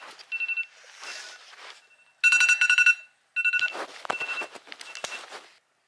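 Electronic alarm beeping: a high, steady beep repeated in quick bursts, loudest about two seconds in, with rustling and a couple of soft knocks between the bursts.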